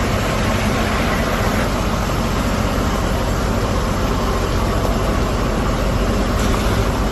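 Fire trucks' engines and pumps running steadily, with a constant rushing hiss.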